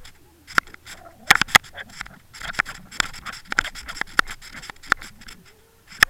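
Irregular sharp clicks and scraping knocks, coming in clusters, heard underwater.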